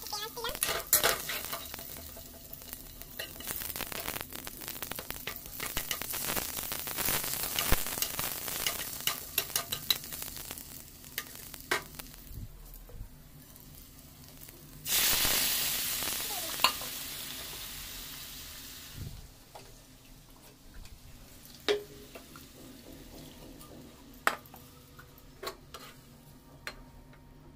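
Onion slices and whole spices sizzling in hot oil in a non-stick frying pan as they are stirred, with sharp taps against the pan. About halfway through, a louder sizzle starts suddenly and dies away over a few seconds.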